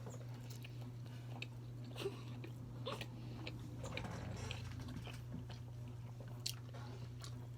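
People eating: soft chewing with scattered small clicks, over a steady low hum.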